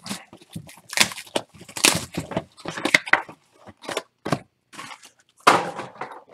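Trading-card boxes and wrapped packs being handled and unpacked: an irregular run of crinkles, rustles and knocks, the loudest near the end.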